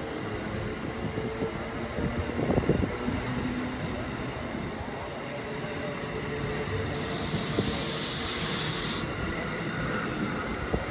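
Amtrak Amfleet passenger coaches rolling along the platform, wheels rumbling on the rails, with a few louder clunks about two seconds in. About seven seconds in there is a hiss lasting about two seconds.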